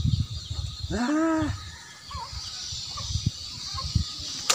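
A single short animal cry about a second in, rising and falling in pitch, over a steady high buzz.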